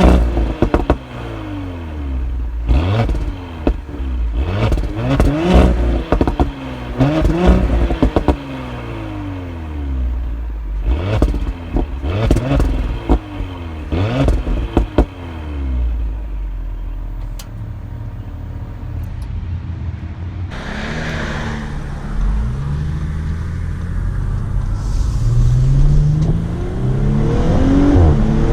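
A stock Audi SQ5's 3.0-litre turbocharged V6 exhaust is blipped in quick revs, one about every second or two, with pops and crackles as the revs drop. After about fifteen seconds it settles to a steady run, and the engine note climbs again near the end.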